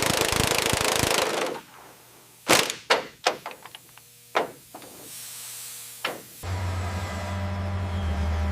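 A loud rushing noise that stops about a second and a half in, then a quick string of sharp metal knocks, and from about six seconds in a deep engine starts running steadily.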